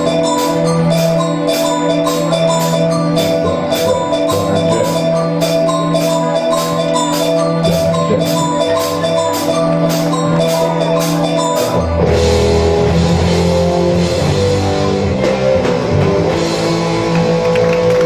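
Student rock band with electric guitars, bass guitar, drum kit and keyboard playing a song. A steady ticking cymbal beat runs until about two-thirds in, then the band moves into a fuller final passage.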